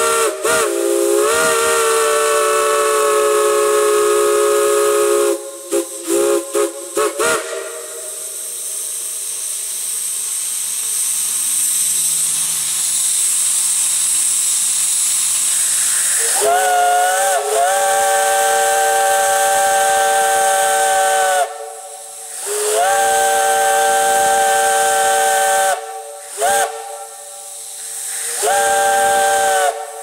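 Steam chime whistles on a manifold blowing loud, steady multi-note chords. A long blast is followed about six seconds in by a quick run of short toots. Then comes about eight seconds of mostly steam hiss, and finally several more long chord blasts separated by brief gaps.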